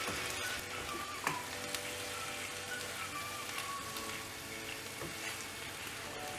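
Mixed vegetables with green peas sizzling in a pan as a wooden spatula stirs them, with a couple of light spatula knocks against the pan.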